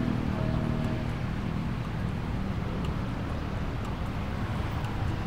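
Steady low rumble of a car idling in a traffic queue, with surrounding road traffic, heard from inside the car's cabin.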